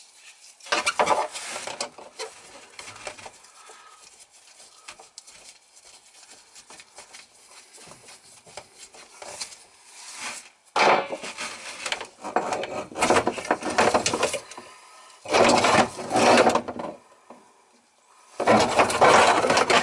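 Rubbing and scraping handling noises as the dishwasher's rubber drain hose is worked loose and pulled off the garbage disposal's inlet, in several bursts with quieter fumbling between.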